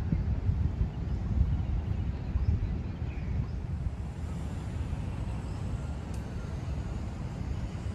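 Wind buffeting the microphone, a low, uneven rumble that rises and falls in gusts.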